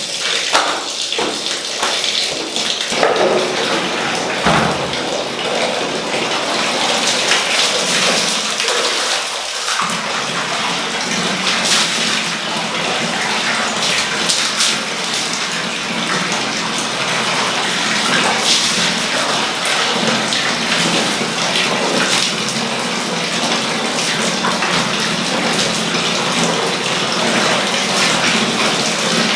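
Water running and splashing, with irregular splashes and knocks in the first several seconds, then a steady rush of water.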